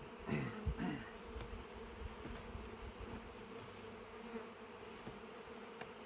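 Honeybees buzzing in a steady hum around an opened beehive, with many bees in the air over the hive. A short, louder sound with a wavering pitch comes about half a second in.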